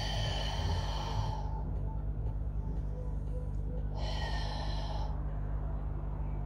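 A person taking two loud, forceful breaths about four seconds apart, each lasting about a second: the paced breathing of a Pilates exercise. A steady low hum runs underneath.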